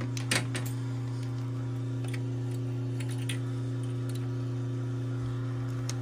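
Steady low electrical hum, with a few light clicks of multimeter probes touching the compressor's terminal block.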